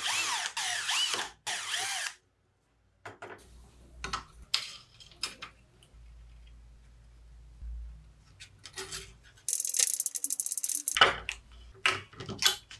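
Power drill boring through thin aluminium angle in three short runs, its motor whine rising and falling. Then small metal clicks and knocks as the motor mount is handled, with a stretch of rapid ratcheting ticks near the end.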